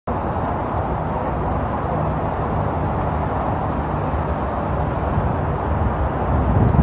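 Steady hum of traffic on a multi-lane highway, heard from high above it.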